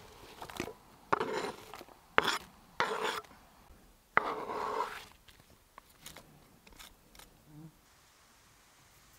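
Chopped onion and sliced tomato scraped off a plastic cutting board into a stainless-steel frying pan: several short scraping, clattering bursts over the first five seconds, then only faint light clicks.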